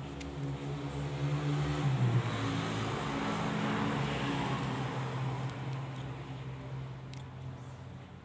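A motor vehicle's engine passing by: a steady hum that swells over the first few seconds and fades away toward the end.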